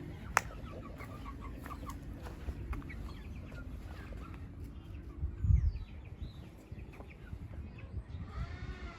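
Domestic chickens clucking on and off. There is a sharp click about half a second in and a short low thump a little past halfway.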